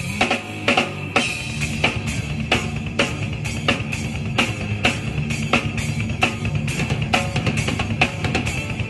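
Drum kit played live in a rock band: a steady beat of kick drum and snare hits with cymbals, over guitar and sustained low notes.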